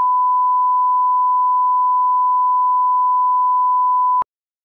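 Bars-and-tone line-up test tone: one loud, steady beep at a single pitch that cuts off suddenly about four seconds in.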